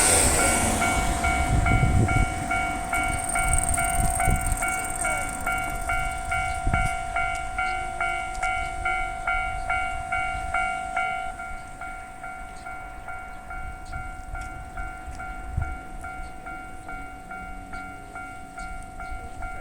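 Japanese railway level-crossing alarm ringing in an even electronic beat about twice a second, over a train's running noise that is loudest at the start and dies away. About halfway through the higher part of the alarm drops out while a lower beat keeps going.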